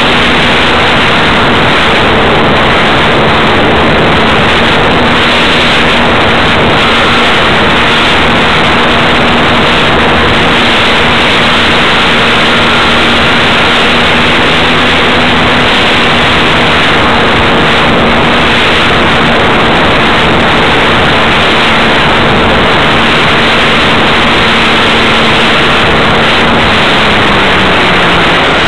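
Motor of a radio-controlled Wilga model airplane, picked up by its onboard camera: a steady hum under a loud, even rushing noise, the hum falling in pitch near the end.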